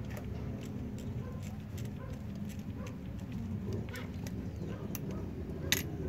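Faint metallic clicks and ticks of locking pliers pressing the side plate onto a motorcycle O-ring chain's master link, with one sharper click near the end, over a steady low hum.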